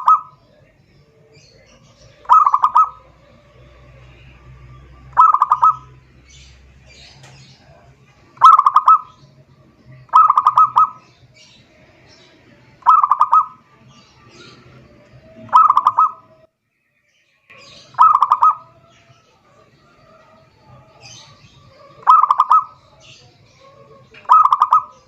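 Zebra dove (perkutut) singing its calling song: about ten short cooing phrases, each a quick run of notes, repeated every two to three seconds.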